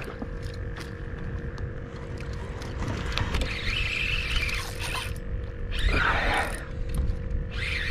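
Wind rumbling on the microphone while a fishing reel is cranked to fight a hooked fish, with mechanical whirring and squeaking and a few brief scuffing noises, one about six seconds in.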